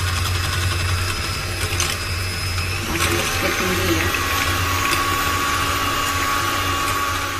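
Electric kitchen mixer running steadily, a continuous whirring motor with a low hum and a slight shift in tone about three seconds in.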